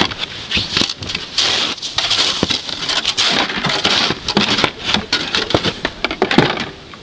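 Snow being scraped and crunched in a quick run of short, uneven strokes with sharp clicks among them.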